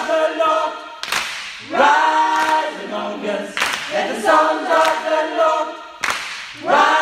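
Men's choir singing a cappella in full harmony, in sustained phrases with short breaks for breath about a second in and again near the end.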